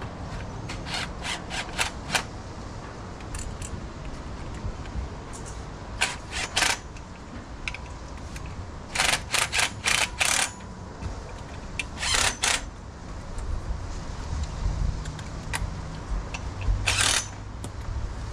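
Hand tools working the bolts of a small-block Chevy's crankshaft pulley: short groups of sharp metallic clicks every few seconds, over a low steady rumble.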